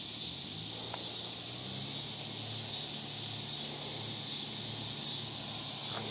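A chorus of insects buzzing high and steady, swelling in a regular pulse a little more than once a second. A faint low hum comes in about half a second in and holds.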